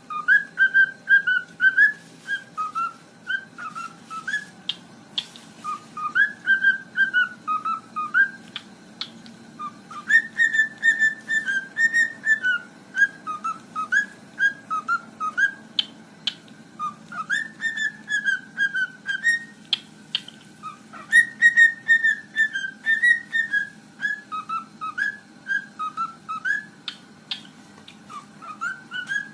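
A pet parrot whistling a tune in short phrases of quick, choppy notes, pausing briefly between phrases, with a few sharp clicks in between.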